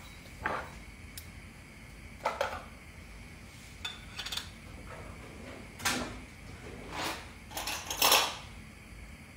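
Kitchen handling sounds: a scatter of short knocks and clinks as dishes, a glass and a jar are picked up and set down on the counter. The loudest cluster comes near the end.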